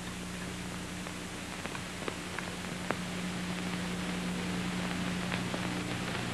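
Steady hiss and low electrical hum of an old soundtrack, with a few faint, light clicks scattered through the first few seconds.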